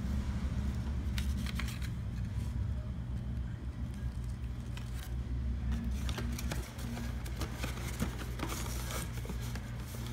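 Paper instruction leaflet rustling and crackling as it is handled and spread out, in several short spells, over a steady low hum.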